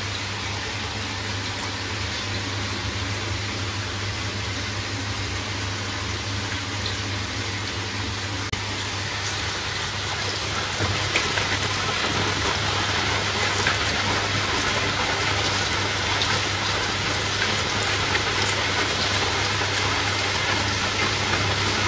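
Chicken pieces deep-frying in hot oil in a metal pan: a steady sizzle with small crackles. It gets louder from about ten seconds in as more pieces go into the oil.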